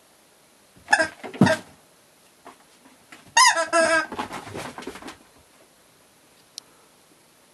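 A cat's sound-making toy going off as the cat pounces on and bats it: a short burst of calls about a second in, then a longer burst of about a second and a half with a falling pitch. A short click near the end.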